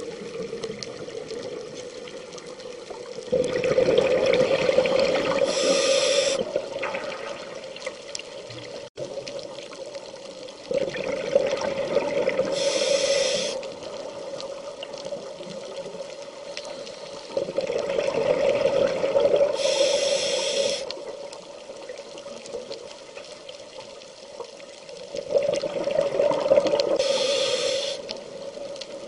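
Scuba diver breathing through a regulator underwater, heard from close by: four breath cycles about seven seconds apart, each a few seconds of bubbling exhaust with a short, sharper hiss near its end.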